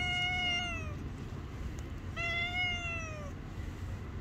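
Cat meowing twice: a long meow already under way trails off falling about a second in, then a second, shorter meow about two seconds in also falls away at its end.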